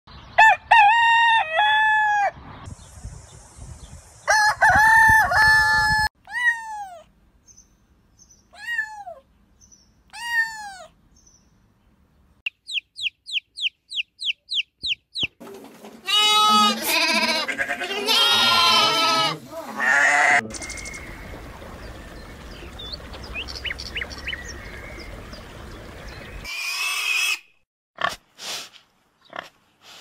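A rooster crowing twice, then a few single falling calls and a quick run of about a dozen high chirps. Several lambs then bleat together for about four seconds, and a few short sharp sounds come near the end.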